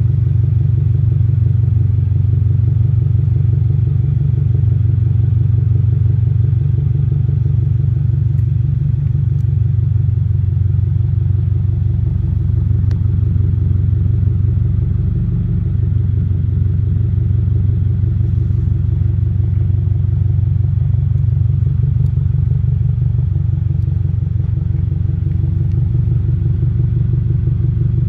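2022 Subaru WRX's 2.4-litre turbocharged flat-four idling through an ETS Extreme axle-back exhaust: a steady low exhaust rumble with a fast, even pulse.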